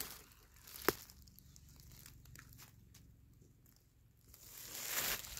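Dry leaf litter crunching and rustling, swelling near the end, with a single sharp click about a second in; otherwise mostly quiet.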